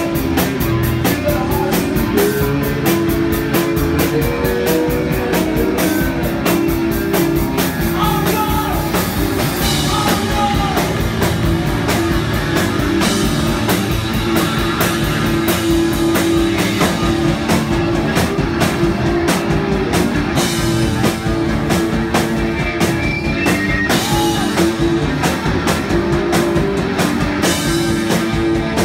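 Live rock band playing at full volume: a driving drum kit with steady, fast hits, electric guitar and bass guitar, with a few sung lines over the top.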